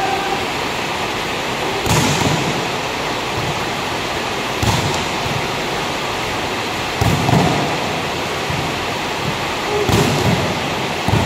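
Volleyballs being spiked and slapping the court in a spiking drill: a sharp smack about every two to three seconds, five in all, over a steady rushing noise.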